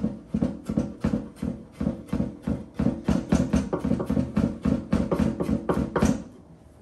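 Kitchen knife chopping rapidly on a wooden cutting board, an even run of sharp knocks about four a second that stops about six seconds in.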